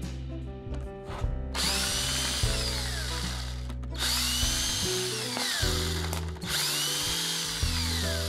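DeWalt cordless screw gun running in reverse, backing screws out of a toilet paper roll. It runs three times, starting about a second and a half in, and in each run the motor whine rises and then falls. Background music plays throughout.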